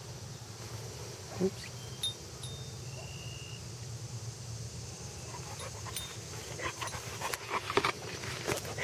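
A boxer dog sniffing and snuffling with its nose down in grass, in a run of quick short sniffs that grows busier over the last few seconds.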